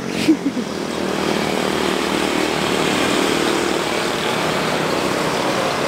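Steady noise of motorbike and road traffic on an adjacent road, with no single vehicle standing out.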